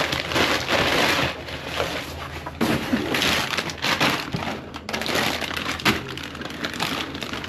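Plastic chip bags crinkling and cardboard rustling as they are rummaged through by hand. It is a continuous crackling with a few sharper crunches.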